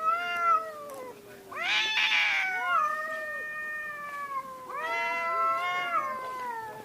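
Cats yowling in a fight: long, drawn-out, wavering wails, three in a row, overlapping one another.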